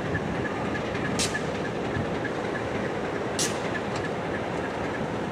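Alco RS-18u diesel locomotive rumbling past on the rails, with a bell ringing steadily about three strokes a second. Two short high hisses stand out, about a second in and again at about three and a half seconds.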